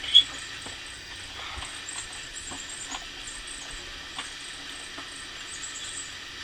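Small birds chirping in high, irregular twitters, with one sharp loud peep right at the start, over soft scattered clicks of items being handled.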